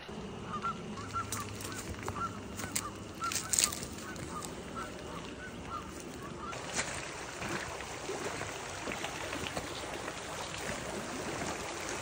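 Geese honking in a quick run of short calls, about three a second, for the first five seconds or so. Under them is a steady wash of creek water, with the rustle and crackle of footsteps pushing through dry grass and brush.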